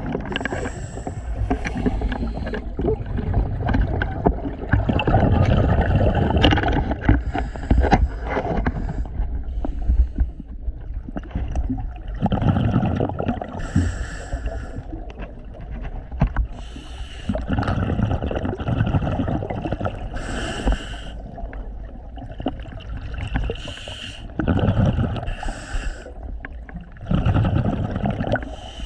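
Scuba regulator breathing underwater: a hissing inhale through the regulator alternates with a rumble of exhaled bubbles, in a slow cycle about every five to six seconds.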